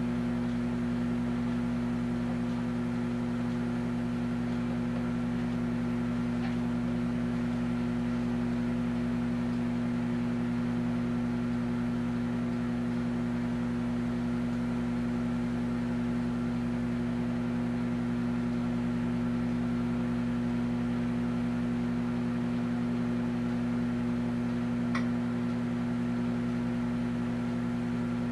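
Amazon Basics microwave oven running, a steady hum with a strong low tone. A single faint tick sounds near the end.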